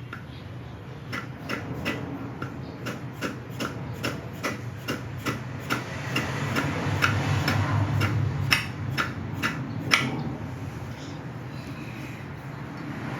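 Light taps, about two to three a second, seating an anodized plug with an O-ring in the oil pressure relief valve bore of a GM 5.3 LS V8's oil pan, so the valve is deleted. The taps stop about ten seconds in.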